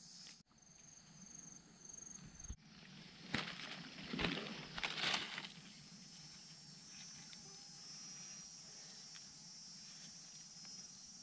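Forest ambience: an insect calling in a high, evenly pulsing trill that cuts off suddenly about two and a half seconds in. About two seconds of crackling rustle in dry leaf litter follow. Then a faint steady insect hum continues.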